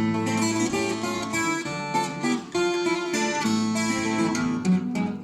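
Acoustic guitar playing the romance's accompaniment alone, strumming and plucking chords in an instrumental passage between sung verses.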